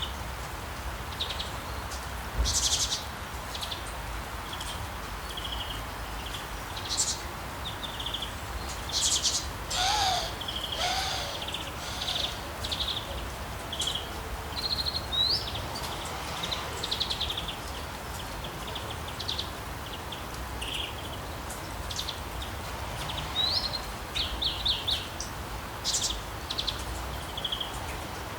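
Outdoor birdsong ambience: many small birds chirping and trilling in short repeated calls over a steady low background hum. Around ten seconds in there are two short, lower calls.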